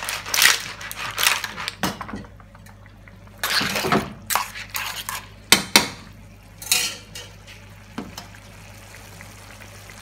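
Steel sauté pan of spaghetti with mussels and clams being tossed and stirred over a gas flame while the pasta finishes in its sauce: irregular clatter of shells and utensils against the pan with sloshing, sizzling sauce, including a couple of sharp clinks about halfway through.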